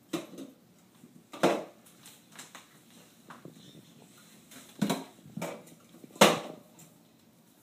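Items being set down one at a time on refrigerator shelves: about five separate knocks, the loudest near the end.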